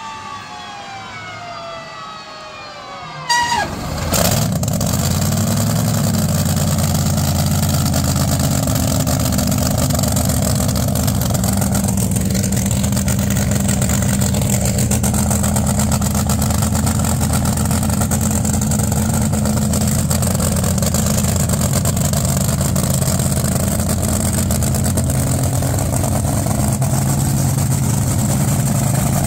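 A falling whine, then about three seconds in a car engine catches abruptly and runs loudly and steadily close by.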